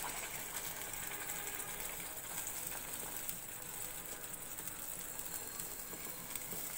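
Hot oil sizzling steadily in an aluminium pan as a blended spice paste is scraped in from a blender jar.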